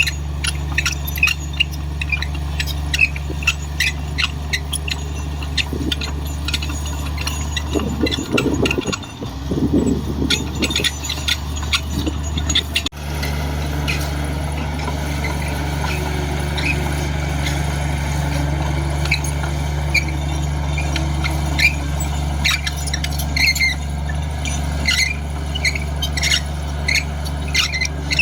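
Komatsu D58 bulldozer's diesel engine running steadily, with many short, high squeaks and squeals over it.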